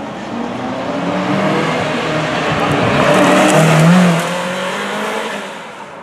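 Ferrari F40's twin-turbo V8 accelerating past close by, its engine note rising to a peak about four seconds in and then fading as the car pulls away.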